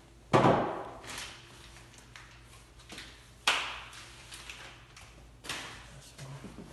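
Three sharp metallic knocks, each with a short ring, about three seconds and then two seconds apart, the first the loudest: the old hood gas strut being pulled off its mounts and handled.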